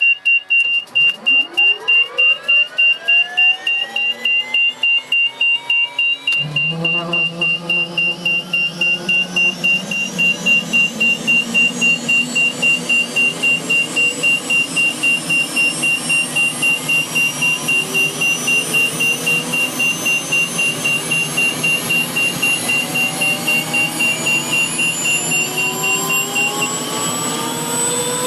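Bell 206 JetRanger's Allison 250 turboshaft engine starting: the starter whine rises from about a second in, a deeper steady rumble joins about six seconds in as the engine lights, and then the turbine whines climb steadily as it spools up. A fast pulsing warning beep sounds through it and stops shortly before the end.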